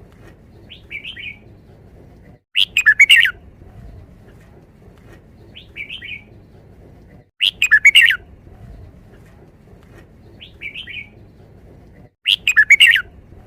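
Red-whiskered bulbul singing: three loud, short multi-note song phrases about five seconds apart, each followed a couple of seconds later by a softer, shorter call.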